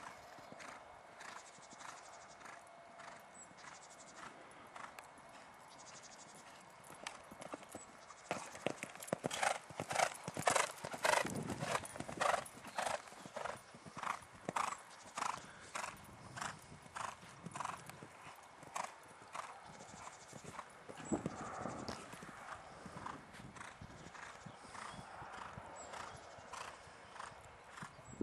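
Hoofbeats of a grey pony cantering on sand footing, a steady rhythm of about two strikes a second. They grow loud about eight seconds in as the pony passes close by, then fade as it moves off around the arena.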